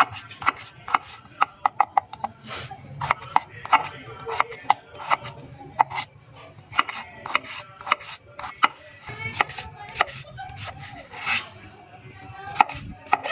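Kitchen knife chopping red onions on a plate: sharp, irregular taps of the blade cutting through onion and striking the plate, about two a second, with short pauses between runs of cuts.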